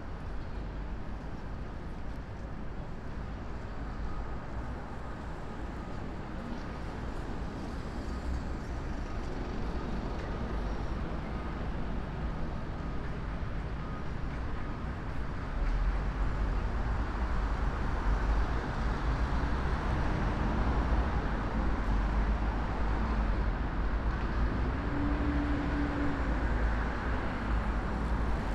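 City street traffic: a steady hum of passing cars with a deep rumble that grows louder about halfway through.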